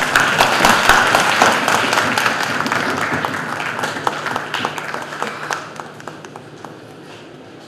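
Audience applauding, loudest in the first couple of seconds and fading out by about six seconds in.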